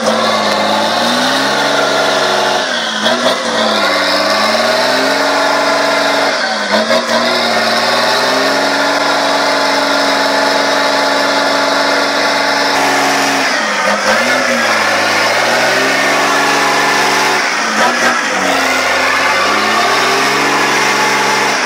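Heavy truck's diesel engine working hard under load, bogged in deep mud, its revs sagging and climbing again every few seconds as the throttle is worked.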